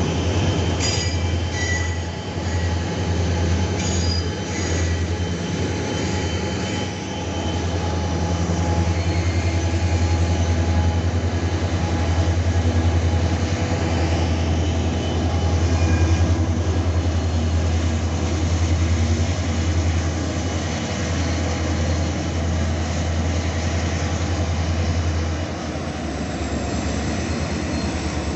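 Loaded freight train rolling past, its wheels squealing against the rails in short high bursts during the first few seconds, over a steady deep diesel locomotive drone and the rumble of the wagons.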